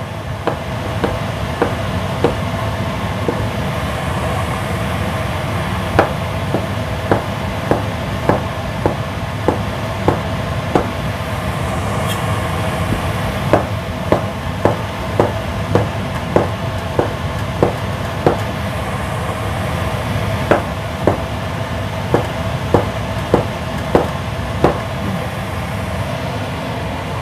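Kitchen knife slicing through a block of tempeh and knocking on the cutting board: a run of sharp chopping knocks at an uneven pace of roughly one or two a second, sparser at first. A steady machine hum runs underneath.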